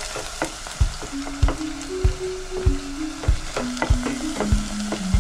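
A wooden spoon stirs chopped greens in a stainless steel pot while the food sizzles, with scattered clicks and scrapes from the spoon. Background music with a steady beat plays underneath.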